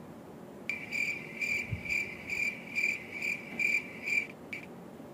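Cricket chirping: a high, pulsing chirp at about two pulses a second that starts just under a second in and stops suddenly, with one short last chirp after it.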